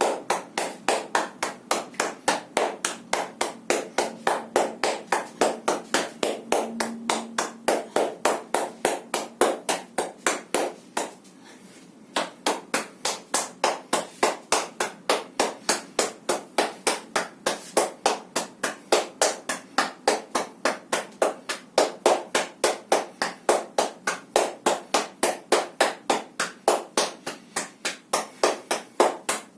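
Hands striking the body in rhythmic percussion massage, even slaps about three a second, stopping briefly near the middle before carrying on.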